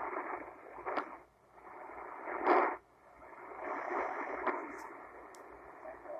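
Static and hiss from a Tecsun S-8800 shortwave receiver's speaker, tuned to 3846 kHz, in a gap between voices on the station. The sound is thin and narrow-band, with a louder crackle of static about two and a half seconds in.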